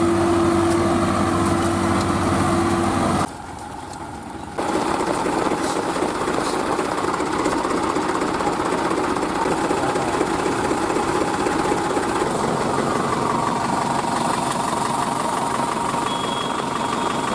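Diesel tractor engines running at high revs as the tractors work through deep mud. The first engine holds one steady pitch, the sound drops away suddenly about three seconds in, and a second engine comes back about a second later and runs on steadily.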